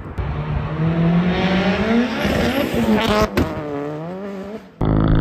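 Turbocharged Chevy Cruze 1.8 four-cylinder accelerating hard in first gear past the microphone, its engine note climbing. A little after three seconds in comes a sharp bang as it flat-foot shifts into second with the ignition cut, sounding like fireworks. It then pulls away at a lower, falling pitch.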